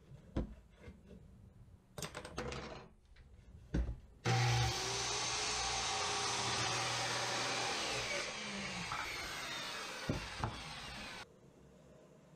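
A few knocks as wood is handled, then a handheld circular saw starts about four seconds in and cuts through a wooden board. It then winds down with falling pitch and stops near the end.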